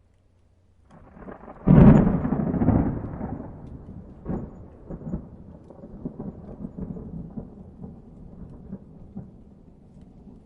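A thunderclap: a short building rumble, then a sharp, loud crack about two seconds in, followed by a long rolling rumble with scattered crackles that slowly fades.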